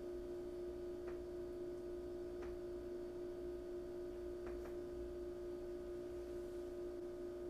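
A steady hum on one held pitch, with a low rumble beneath it and a few faint ticks about a second, two and a half seconds and four and a half seconds in.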